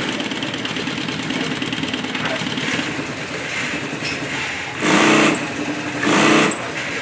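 Industrial sewing machine stitching nylon webbing onto a fabric bag panel. It runs at a steady pace, then near the end comes two short, louder bursts of faster stitching.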